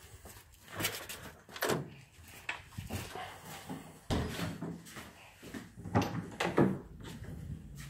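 Footsteps on a hard floor, then a door being handled and opened, with two loud clunks about six seconds in.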